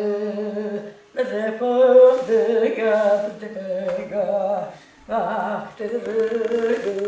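An elderly woman singing an ağıt, a mother's unaccompanied lament for her son, in long wavering held phrases. She breaks off briefly about a second in and again about five seconds in.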